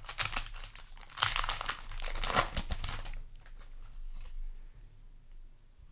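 Foil booster pack wrapper crinkling and tearing open, loudest for about two seconds from around a second in, then quieter rustling as it is handled.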